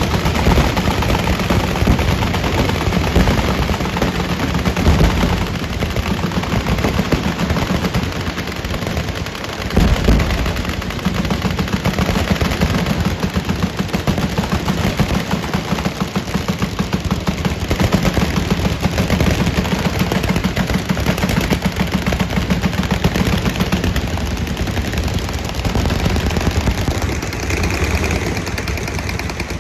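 Dense, continuous automatic gunfire from many guns firing at once, machine-gun bursts overlapping into one unbroken rattle. It dips briefly about ten seconds in, then comes back louder.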